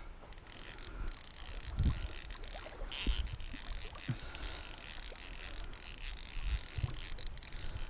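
Fly reel clicking as a hooked bass is played and line is reeled in, with a few low thumps from handling.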